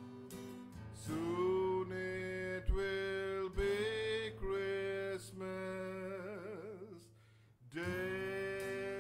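Singing in long held notes with vibrato, to a strummed acoustic guitar. The music drops out briefly about seven and a half seconds in, then a new held note starts.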